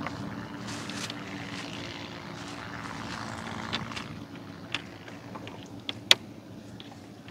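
Boat engine running steadily with a low hum, with a few sharp clicks and knocks in the second half, the loudest about six seconds in.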